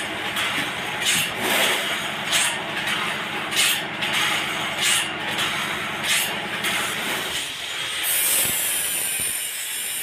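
Sawmill machinery running: a steady engine hum with a short hiss repeating about every second and a quarter, then a higher steady hiss from about eight seconds in.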